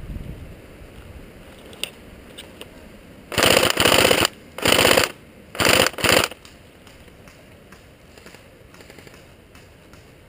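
Airsoft replica firing on full auto in four close, loud bursts, each a rapid rattle of shots. The first burst is about a second long and the last two are short. They come about three seconds in, one after another over roughly three seconds.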